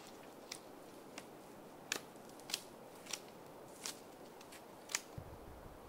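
Skrama bush knife shaving bark off a branch: a series of about eight short, sharp scraping strokes, roughly one every two-thirds of a second.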